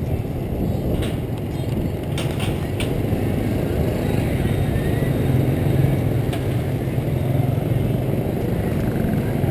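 Street traffic of many motorbikes, heard as a steady low rumble from a bicycle riding among them, with a few sharp clicks.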